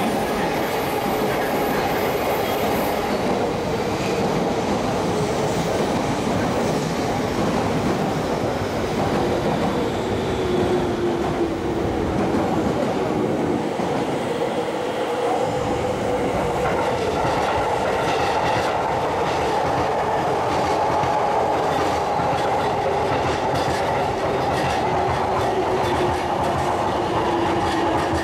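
Shinkansen trains, among them a 700 series, and a JR commuter train running past: a steady rumble and clatter of wheels on rails, with a motor tone that slowly falls in pitch twice.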